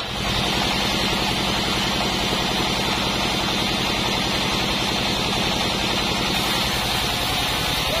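Band sawmill running, its band blade sawing lengthwise through a mindi log. There is a steady, fast low pulsing from the drive and a constant hiss from the cut.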